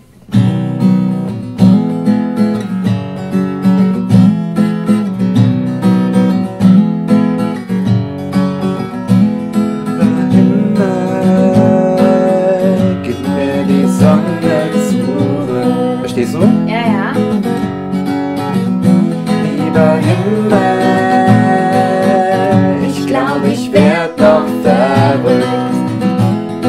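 Taylor acoustic guitar strummed in a steady rhythm, playing the chorus of a children's song on the chords C, F and G.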